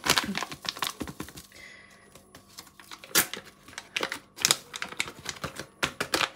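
Spice sachet crinkling and being squeezed and tapped as ground red pepper is shaken out of it, a run of irregular sharp crackles and taps.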